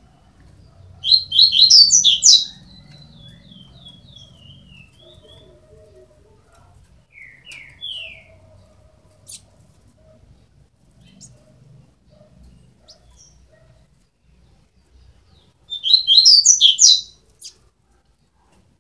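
Double-collared seedeater (coleiro) chicks, 12 days old, chirping: two loud bursts of rapid, high-pitched chirps, about a second in and again near the end, with a few softer single notes between.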